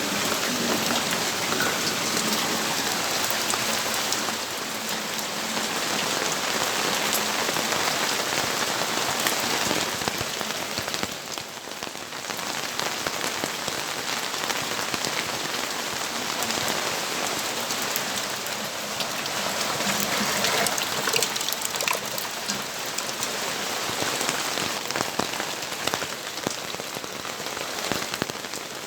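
Steady rain falling and pattering on surfaces, with many individual drops ticking; the rain eases briefly about eleven seconds in, then picks up again.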